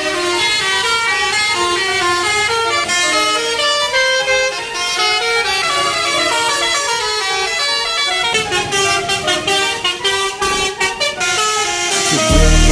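Bus 'telolet basuri' multi-tone musical horn playing a fast melody, its notes stepping quickly from pitch to pitch. About eight seconds in, a rapid series of clicks joins it, and near the end loud music with a heavy bass comes in.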